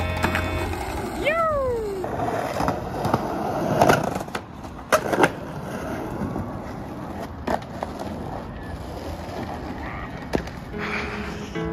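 Skateboard wheels rolling over asphalt and concrete, with several sharp wooden clacks of the board popping and landing, the loudest about four and five seconds in. A short voice-like call rises and falls about a second in.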